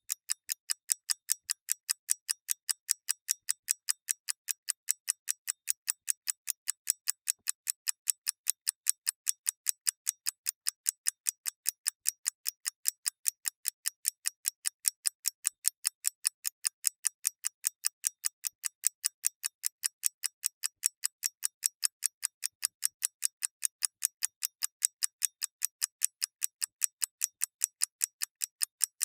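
A mechanical clock ticking in a fast, even rhythm of several sharp ticks a second, unchanging throughout.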